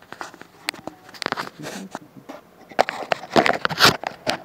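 Handling noise from a camera phone being moved and carried: an irregular run of clicks, knocks and rustles, busiest and loudest about three seconds in.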